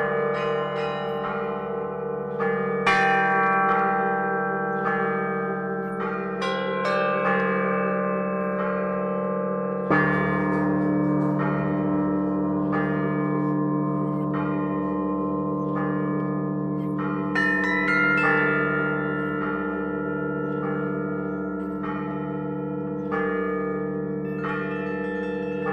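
Russian church bells rung by a bell ringer. Quick strikes on the small bells over the long, sustained ring of the larger bells, with heavier strikes about three and ten seconds in and again near eighteen seconds.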